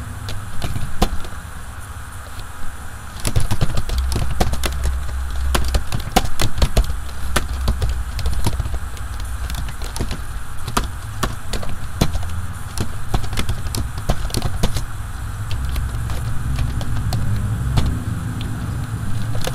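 Computer keyboard being typed on: irregular key clicks, over a steady low rumble.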